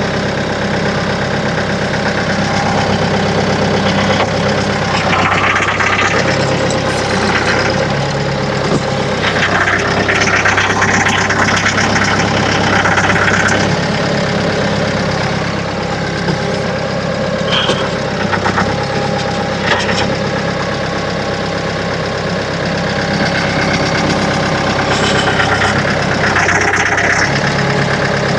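A heavy-equipment engine running steadily, growing louder a few times as if working harder.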